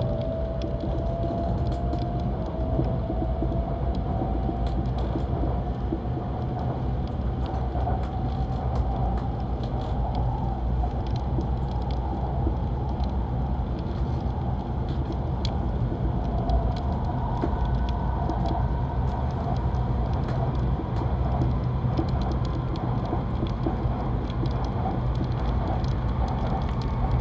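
Interior sound of a Kyushu Shinkansen 800 series train running on a viaduct: a steady low rumble of the wheels and running gear. Over it, a thin motor whine climbs in pitch through roughly the first ten seconds as the train gathers speed after leaving the station.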